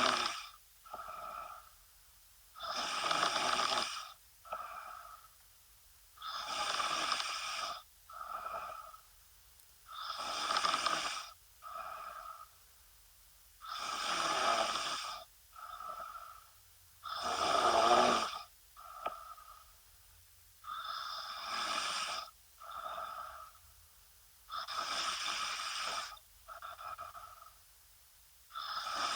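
A woman snoring in her sleep in a steady rhythm, roughly every three and a half seconds: a longer, louder snoring breath followed by a shorter, softer one.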